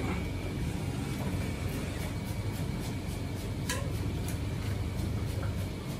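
Steady low rumble of ramen-kitchen equipment, with a few light clinks of a metal strainer and ladle against bowls, the clearest a little past halfway.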